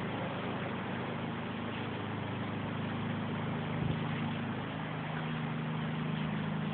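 Torrential rain falling steadily as an even hiss, over a steady low mechanical hum, with one short knock about 4 s in.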